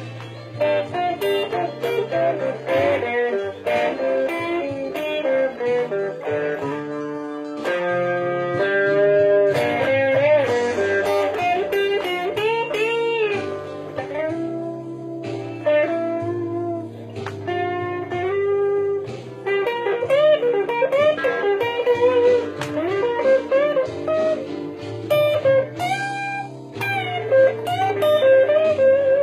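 Blonde Fender Telecaster electric guitar playing a blues lead, many notes bent up and back down, over a steady low bass line.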